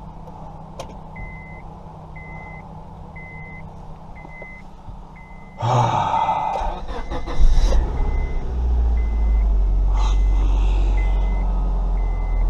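A dashboard warning chime beeps steadily about once a second in a 2005 Honda Civic. About halfway through, the starter cranks and the engine catches and settles into a steady idle, started with a newly programmed key that the immobilizer has accepted.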